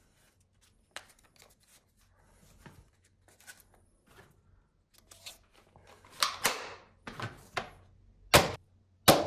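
Plastic clicks and knocks from a toy foam-dart revolver blaster being handled and loaded, faint at first, then a run of sharp clacks from about six seconds in, the loudest two near the end.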